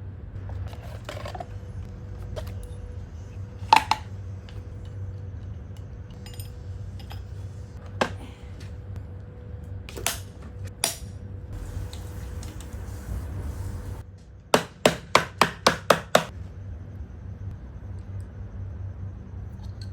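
Hammer blows on a CV axle joint: a few single strikes, then a quick run of about seven taps, roughly four a second, near the end.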